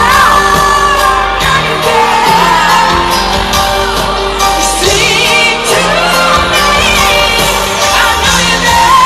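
Live pop ballad in an arena: a female lead voice sings held, wavering notes over band accompaniment with a steady bass. A long held note starts near the end.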